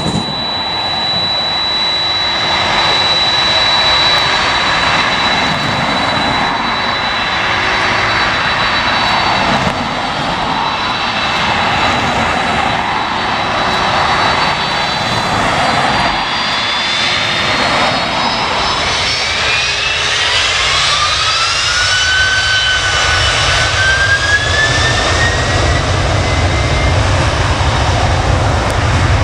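Jet airliner engines running loud and steady. In the second half a whine climbs in pitch and the deep rumble builds.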